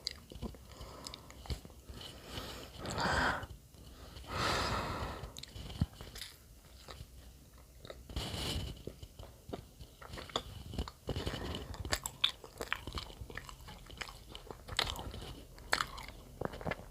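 Close-up mouth sounds of someone biting and chewing durian-flavoured bread: many small wet smacks and clicks, with a few longer hushing swells of noise about 3, 4 and 8 seconds in.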